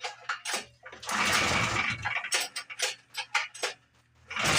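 Metallic clicks and clinks around the pull-start Predator 420 single-cylinder engine, with one pull on the recoil starter about a second in that turns the engine over without it catching. Near the end the engine fires and starts running.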